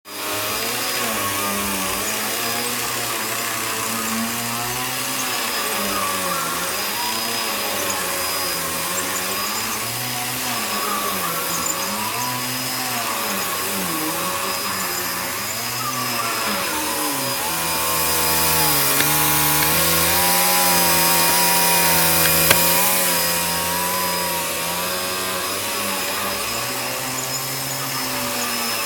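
Bissell vacuum cleaner running over a rug, its motor hum rising and falling in pitch as it is pushed back and forth. It gets louder for a few seconds just past the middle.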